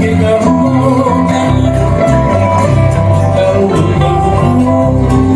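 Live Hawaiian string-band music: ukulele and guitars strumming and picking over a steady bass line.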